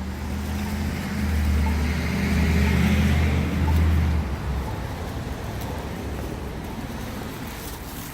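A motor vehicle driving past: a low engine drone with a rushing road noise, building to its loudest about two to four seconds in, then fading away.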